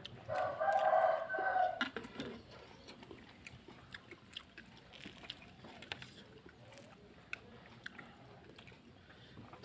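A brief held voice sound in the first two seconds, then quiet eating: soft chewing and light scattered clicks as fried noodles and fritters are picked up by hand.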